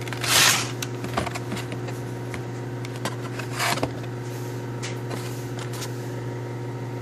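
Hot Wheels blister-pack cards being handled in a cardboard case: two short rustling scrapes, one at the start and one about halfway through, with a few light clicks, over a steady low hum.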